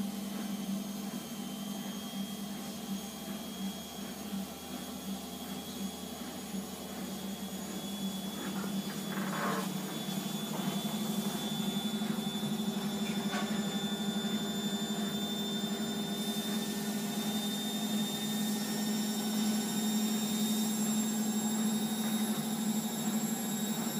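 Steady low hum with a thin high-pitched whine above it, and a brief faint rustle about nine seconds in.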